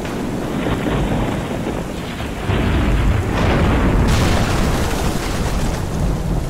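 Thunderstorm sound effects: steady heavy rain under a deep rolling thunder rumble that swells about two and a half seconds in, with a sharp crash about four seconds in.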